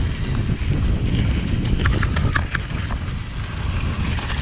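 Wind buffeting an action camera's microphone as a Trek Fuel EX full-suspension mountain bike rolls down dirt singletrack, with a few sharp rattles from the bike over the trail about two seconds in and again near the end.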